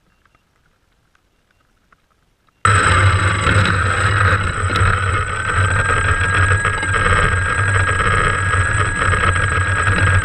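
DJI Phantom quadcopter's motors and propellers starting suddenly about two and a half seconds in, then running at a steady loud whir with a low hum and a high whine that rises slightly as they spin up for takeoff from grass.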